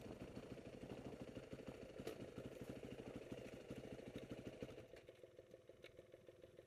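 Yamaha dirt-bike engines idling with a fast, even pulse; the sound drops in level about five seconds in.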